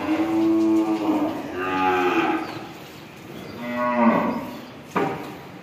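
Cattle mooing: three drawn-out calls, the third falling in pitch and the loudest, then a single sharp click near the end.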